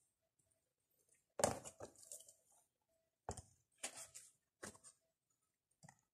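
Oracle cards handled on a tabletop: a deck picked up and set down and a card stood on a small wooden easel, heard as a string of short taps and knocks, the loudest about one and a half seconds in.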